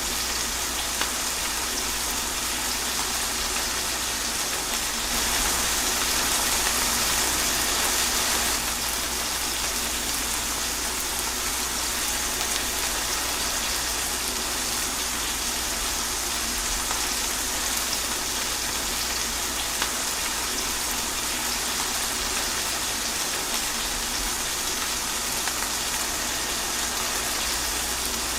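Steady rain falling, an even hiss of drops, swelling a little louder about five seconds in for a few seconds before settling back.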